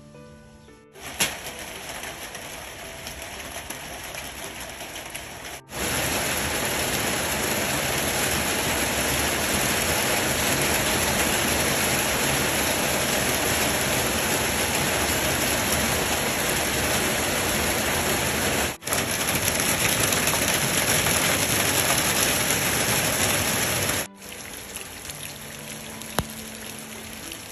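Heavy rain falling steadily, with water pouring off a roof's edge and splashing below. The sound jumps abruptly in level a few times: a softer patter for the first few seconds, much louder and denser from about six seconds in, and softer again for the last few seconds.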